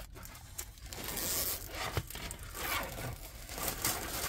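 Clear plastic cover sheet on a diamond-painting canvas crinkling and rustling as it is handled and rubbed flat by hand, with irregular scraping swishes.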